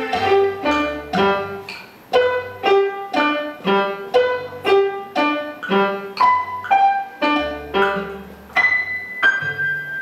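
Grand piano played solo: a steady run of struck chords, about two a second, over low bass notes, giving way near the end to a few higher notes held longer.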